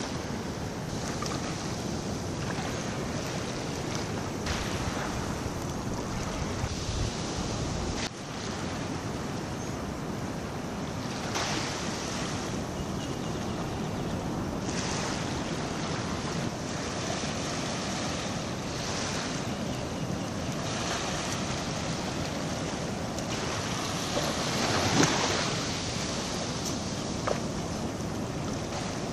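Wind and small waves lapping in shallow lagoon water at the shore, a steady rushing that swells and eases, with a louder swell about twenty-five seconds in. Wind buffets the microphone.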